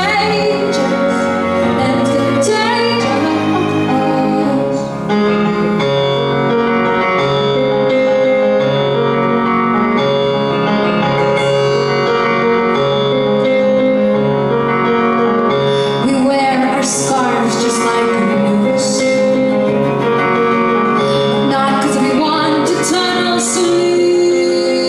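A woman singing live with her own grand piano accompaniment, the voice gliding between notes over sustained piano chords.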